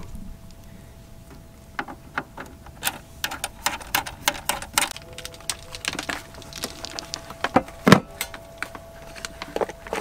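Handling noise from a power cable and plug being connected: a string of irregular clicks, rattles and knocks, one louder knock about eight seconds in, over a faint steady tone.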